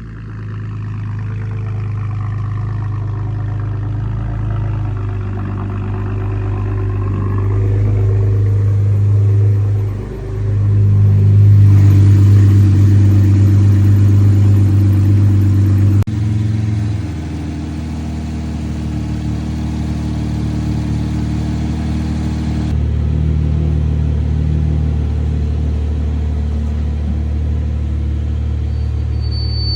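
2020 Chevrolet Camaro's 3.6-litre V6 idling steadily just after a cold start, freshly filled with new oil. The idle is louder for a few seconds past the middle, then drops off abruptly.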